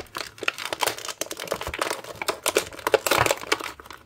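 Thin clear plastic packaging crinkling and crackling as it is handled, in a quick irregular run of crackles that is busiest about three seconds in.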